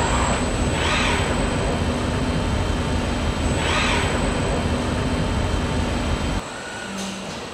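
Steady factory machinery noise: a low hum under an even hiss with a thin high whine, and three brief hissing swells. It drops to a quieter, different machine background about six and a half seconds in.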